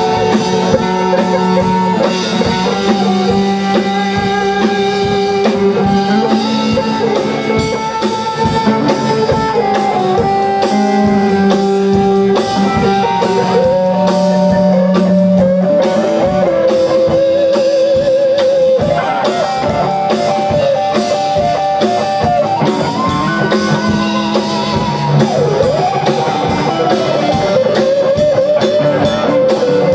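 Rock band playing live with no vocals: electric guitars, bass guitar and drum kit. A lead line of long held notes with bends and wide vibrato rides over the chords.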